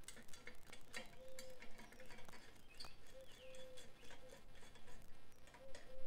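Scattered metal clicks and taps from hands and tools working on a Miata's exhaust tip while the baffle is changed, engine off. Short chirps and tones from birds or insects can be heard in between.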